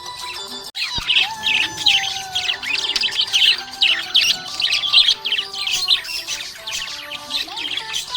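Budgerigars chirping and warbling in rapid, busy chatter, starting about a second in after a brief stretch of music, with some music still underneath.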